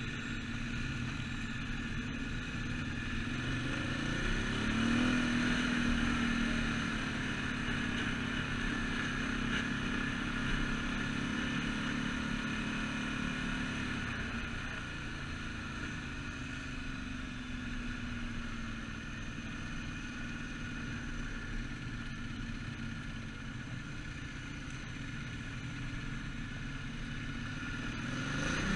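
Motorcycle engine running steadily as the bike climbs a gravel road, heard from a camera mounted on the bike. The engine pitch rises about five seconds in, then eases off slowly.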